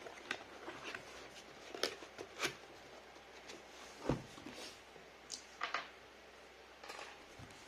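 Irregular clicks, taps and short rustles of packaging being handled, with one dull thump about four seconds in.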